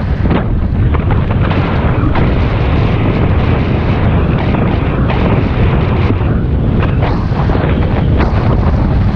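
Loud, steady wind buffeting on the microphone of a bicycle ride, a deep rumble with no let-up.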